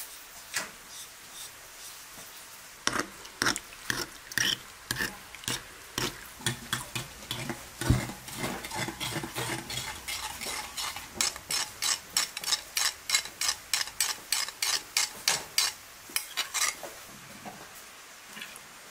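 Metal spoon stirring tomato-paste sauce in a glass bowl, clinking quickly against the side about four times a second. There is one louder knock about eight seconds in. The clinking starts a few seconds in and stops shortly before the end.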